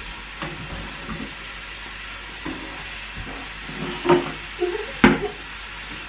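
Food frying in a pan with a steady sizzle, broken by several sharp clinks or knocks of cooking utensils, the loudest about four and five seconds in.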